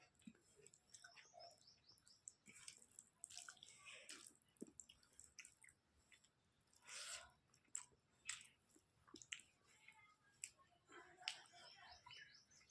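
A person chewing food, faint and close up, with irregular soft wet mouth clicks and smacks; the louder swallows or bites come about three, seven and eleven seconds in.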